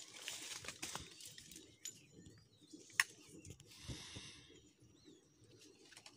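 Rustling and crackling of dry leaf litter as a man crouches and handles things on the ground, in short bursts about a second in and again around four seconds, with a sharp loud click about three seconds in.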